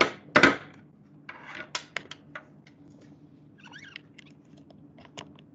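Handling noises: a loud short burst of noise just after the start, then scattered light clicks and taps.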